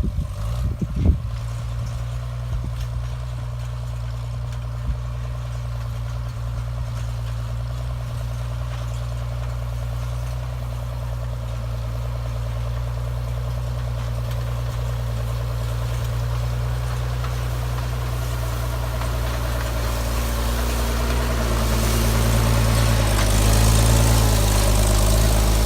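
Farm tractor engine running steadily, getting somewhat louder near the end.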